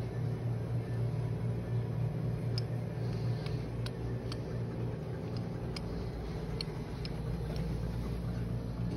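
Steady low mechanical hum of shop equipment, with light scattered ticks and clicks over it.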